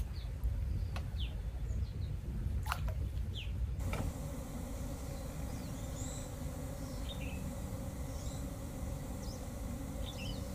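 Outdoor ambience by a creek: short, scattered bird chirps over a low steady rumble. The background changes abruptly about four seconds in, after which a faint steady hum runs under the chirps.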